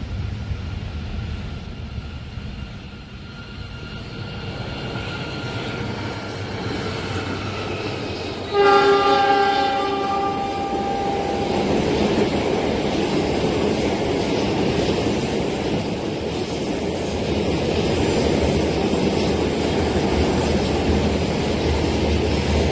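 A train approaches with a rising rumble, then its horn blasts suddenly and loudly about a third of the way in for two to three seconds. The train then runs past, its wheels rumbling steadily on the rails.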